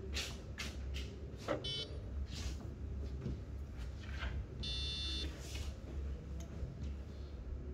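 A few light knocks and clicks and two short electronic beeps, one brief at about a second and a half in and one longer near the five-second mark, over a steady low hum.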